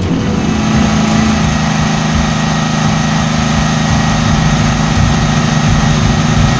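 Grand Prix hydroplane's supercharged alcohol racing engine running hard and steady at a constant speed, loud and dense, heard close up from inside the engine compartment.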